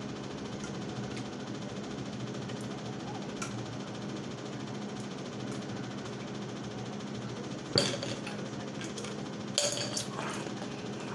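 Knocks and clicks from a plastic drink bottle being handled and set down: one sharp knock about eight seconds in, then a short cluster of clicks near ten seconds, over a steady room hum.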